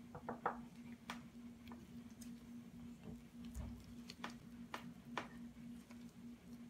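Silicone spatula clicking and scraping against a glass mixing bowl while folding a yogurt-and-cream mixture into thick muffin batter by hand: irregular light ticks, a quick cluster near the start, over a steady low hum.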